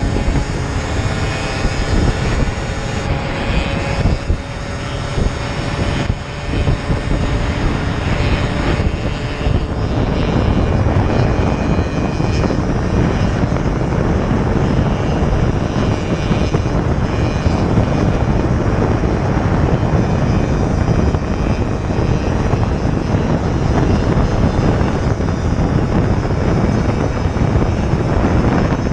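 Beta motorcycle engine running under way, with heavy wind noise on the microphone; the engine pitch climbs near the start.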